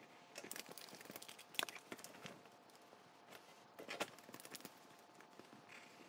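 Faint pencil scratching on paper while a paper cut-out vase is traced around its edge. The scratchy strokes come in two short runs, one starting about half a second in and one about four seconds in, with a sharp tap about a second and a half in.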